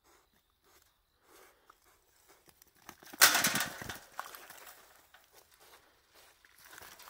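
A young wild boar startling inside a steel-mesh box trap: one loud, rough rustling burst about three seconds in, lasting under a second and tailing off in a few clicks, with faint scuffing before and after.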